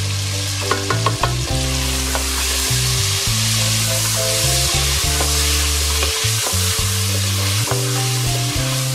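Cubed potatoes, tomatoes and spices sizzling in hot oil in an aluminium pot while a wooden spoon stirs them, with scattered knocks of the spoon against the pot. This is the masala being fried (bhuna) just after the ginger, green chili, turmeric and salt go in.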